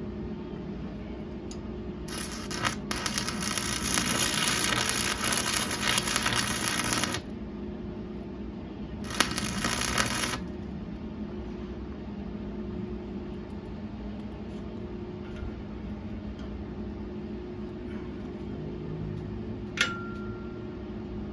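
Welding arc crackling on steel in two runs, about five seconds and then about a second and a half, over a steady machine hum. Near the end, a single sharp metal clink that rings briefly.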